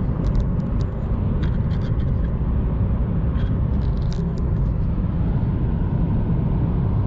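Steady road and engine rumble of a moving car, heard from inside the cabin, with a few light clicks in the first half.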